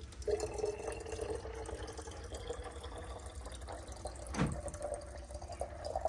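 Long-life coolant pouring in a thin stream into a car's plastic coolant reservoir: a steady trickling fill with a held note. There is one short knock about two-thirds of the way in.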